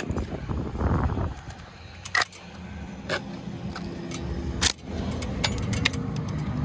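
Formed plastic sign letter being pried off a wall with a flat plastic pry tool: a short scrape of tool and plastic against the wall, then three sharp clicks and snaps as the letter's stud posts work loose.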